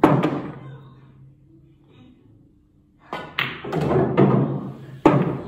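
Pool balls and cue on a pool table: a sharp cue strike and ball clack at the start, a run of knocks and rolling about three seconds in, and another sharp cue strike near the end.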